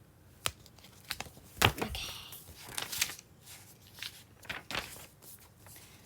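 Picture-book pages being handled and turned: a string of sharp clicks, crinkles and paper rustles, the loudest about a second and a half in.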